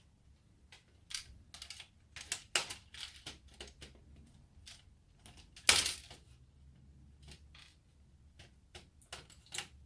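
Irregular clicks and clatters of hard plastic parts being handled and pulled apart from an electronic kids' toy, with one louder knock about six seconds in.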